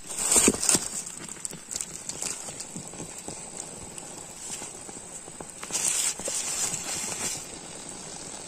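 Bamboo cooking tube being knocked and split open, with irregular knocks and cracks that are busiest in the first second and again about six seconds in.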